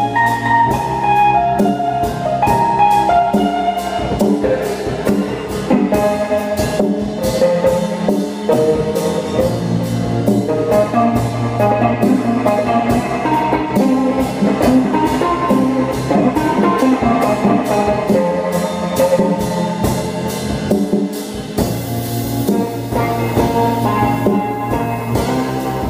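Live band instrumental passage: keyboard chords and melody over a steady drum beat, with no singing.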